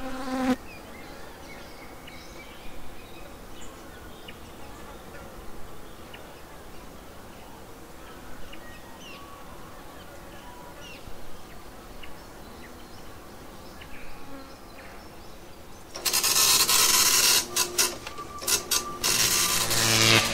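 Experimental noise-art sound: a low hiss with faint scattered chirps and ticks, then about 16 seconds in a sudden loud burst of harsh noise that stutters with several brief cut-outs, joined near the end by steady low hum tones.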